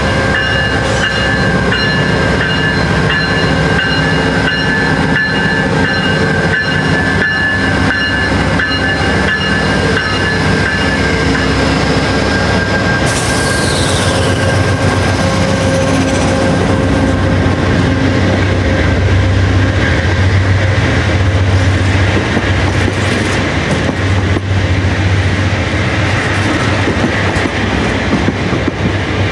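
GE P42DC diesel locomotive and its bilevel passenger cars rolling slowly past a station platform: the engine drone grows stronger as the locomotive passes, with wheels clicking over the rails. A short falling screech comes about halfway through.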